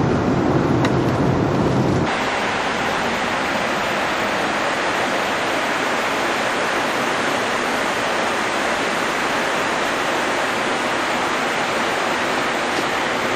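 Steady rushing airflow and engine noise inside an Airbus A330 airliner in flight. About two seconds in it changes abruptly from a deeper, fuller noise to a brighter, even hiss.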